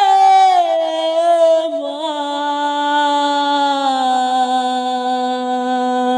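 A singer's voice in a Bengali lament holding out the last syllable of a line. The note slides slowly down in pitch, then settles into a long, steady held note from about four seconds in.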